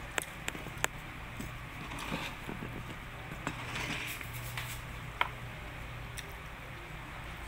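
Spoon and fork clicking against a plate several times, three quick clicks at the start and a ringing one about five seconds in, with soft chewing between, over a low steady hum.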